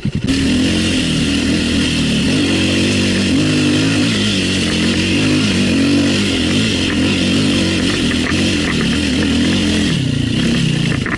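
Off-road dirt bike engine revving hard, its pitch rising and falling over and over as the throttle is worked; it starts abruptly just after the beginning.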